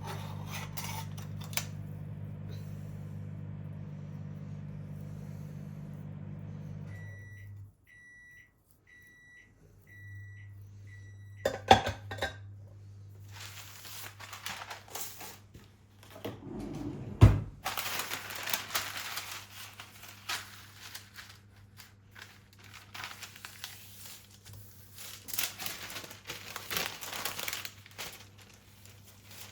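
A microwave oven hums steadily, stops about seven seconds in, and gives a run of short high beeps to say it is done. Its door is then opened with a couple of sharp knocks, and a loud thump follows. Rustling and crinkling handling noise fills the rest.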